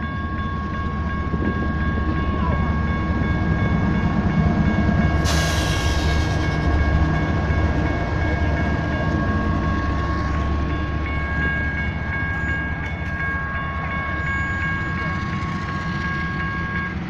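General Signals Type 1 electronic crossing bells ringing steadily as the tail of a BNSF freight train rolls past, with the low rumble of a diesel locomotive at the rear of the train going by. A loud hiss starts about five seconds in and fades over a couple of seconds. The bells stop at the very end as the train clears the crossing.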